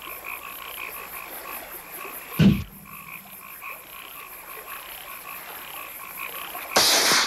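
Night chorus of frogs calling in quick, even pulses. A sudden bang comes about two and a half seconds in and a short loud hiss near the end: flash powder going off.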